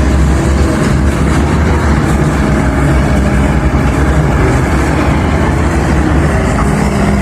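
Heavy diesel engine of a CAT 320 excavator running steadily at an even pitch.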